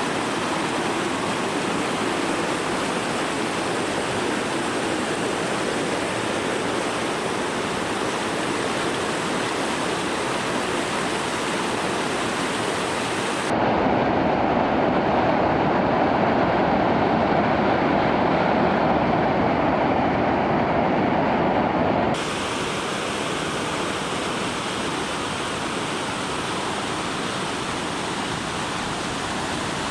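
Datanla waterfall, water falling and rushing in a steady noise. About 13 seconds in it turns abruptly louder and duller, and about 22 seconds in it switches back to the earlier, brighter rush.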